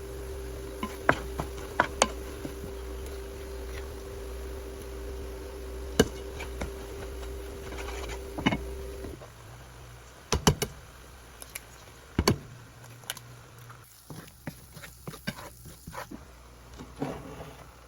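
Cooking at the stove: scattered sharp clicks and knocks, like a utensil against a pan, over a steady hum that cuts off about halfway through.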